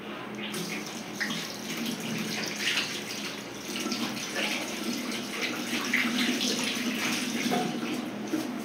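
A tap turned on about half a second in, then water running from it into a ceramic washbasin as soapy hands are rinsed in the stream.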